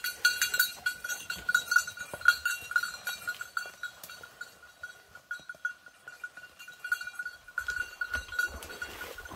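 A bell on a bird dog's collar jingling in quick, irregular strokes as the dog hunts through the brush, thinning out in the middle and picking up again near the end, over the rustle of brush.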